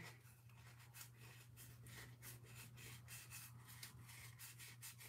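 Faint rubbing and light scratching from hands handling craft materials at a work table, a few small ticks a second, over a low steady hum.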